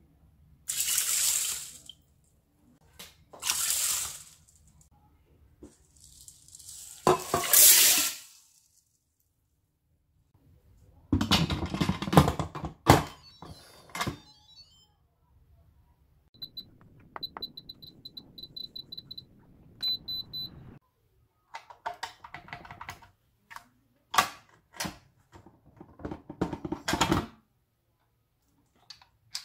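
Red beans and water poured into an Instant Pot's stainless steel inner pot in several bursts, then a run of short, high electronic beeps from the cooker's control panel, followed by clicks and knocks as the lid is handled.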